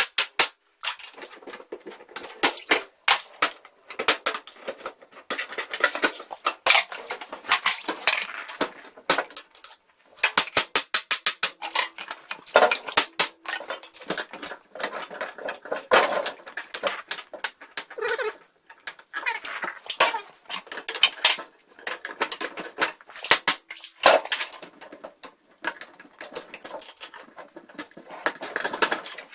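Rapid metallic clanking and clattering: dense runs of sharp strikes, several a second, broken by a few abrupt short pauses.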